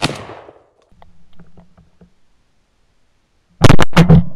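Shotgun fire from an AR-style 12-gauge: a sharp report at the start that dies away within half a second, then about three and a half seconds in a much louder blast with several sharp peaks over half a second, trailing off.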